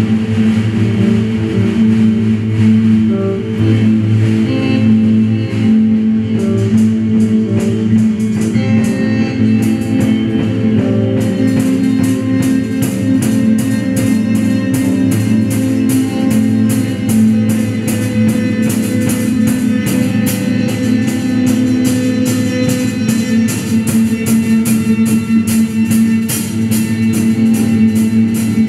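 Live experimental improvisation on electric guitar, electric bass and drum kit: sustained, droning low notes, joined about eleven seconds in by a fast, even run of drum and cymbal strokes.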